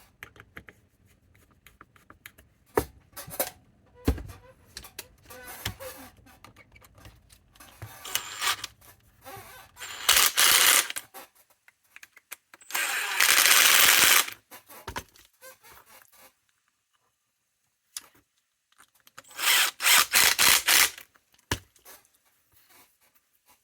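Power drill driving screws down into a wooden block in three short runs of a second or so each, with handling clicks and knocks between them.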